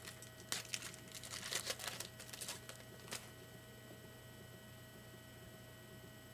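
Trading cards and foil pack wrappers being handled: a flurry of rustling and light clicks for the first few seconds, then only a steady electrical hum.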